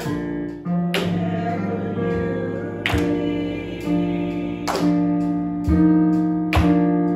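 Instrumental church music: sustained keyboard chords, struck afresh every second or two.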